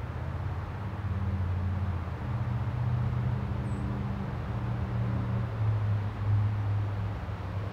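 A steady low mechanical drone with a slight, slowly shifting pitch.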